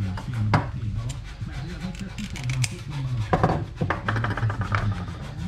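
Tin snips cutting small pieces of metal mesh, a few sharp snips and clicks mixed with rubbing and handling on a workbench.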